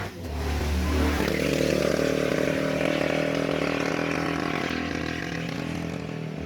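A vehicle engine running steadily under way, with a deep drone that comes in about a second in.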